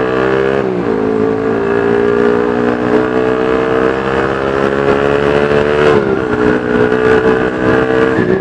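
Honda New CB150R's single-cylinder engine running through a 3Tech Spartan GP aftermarket racing exhaust, pulling under acceleration. Its pitch climbs steadily and drops suddenly at gear shifts about half a second in and again about six seconds in.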